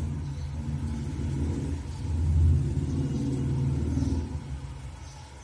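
Washing machine starting its wash cycle: a low, pulsing rumble from the motor and drum, loudest about halfway through and fading near the end.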